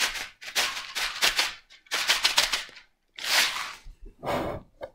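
Dry lentils rattling and rustling in their packet as a handful is shaken out into a hand, in about five short bursts of fine clicking grains.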